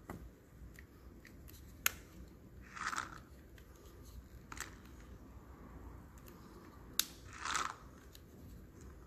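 A 300 cc plastic syringe drawing soapy fake blood and air back through a thin tube from a wound model, making two short sucking gurgles about four and a half seconds apart, each shortly after a sharp click. The frothy suck is the simulated sucking chest wound.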